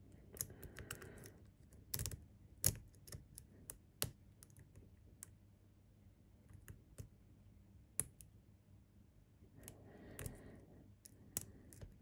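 Steel lock pick clicking against the pins inside a pin-tumbler lock cylinder, with the tension wrench in the keyway: light, irregular metallic clicks, with a brief scraping pass about half a second in and another around ten seconds in.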